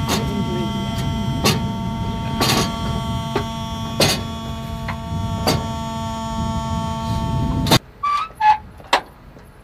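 A machine running steadily with a fixed pitch, under six sharp metallic knocks spaced a second or two apart as the Shadow UAV launcher's folding rail is pushed up and locked into place. Near the end the running sound cuts off suddenly, and three short metal clinks follow.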